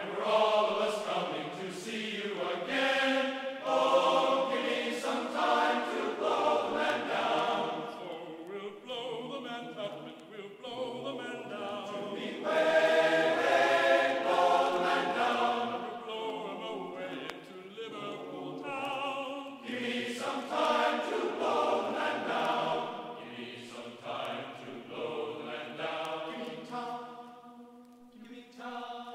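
Background music: a group of voices singing a sea shanty in chorus.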